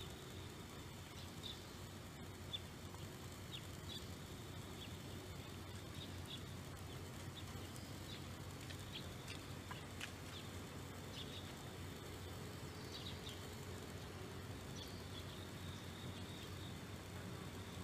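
Small birds chirping faintly: short high chirps scattered every second or so, over a steady low hum.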